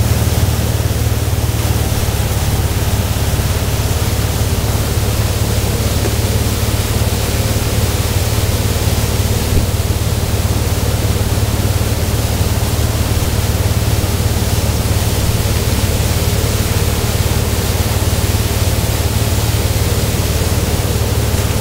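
MasterCraft towboat under way at wakeboarding speed: a steady low engine drone under a loud, even rushing of wind and churning wake.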